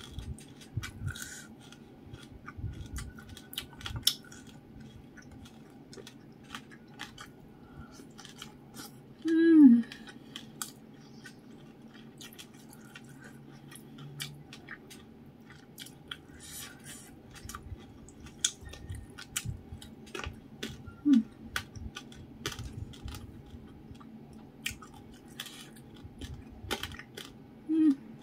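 Close-miked mouth sounds of a person eating by hand: soft chewing with many small wet clicks and lip smacks. Three short hummed "mm" sounds, each falling in pitch, break in, the first and loudest about a third of the way through.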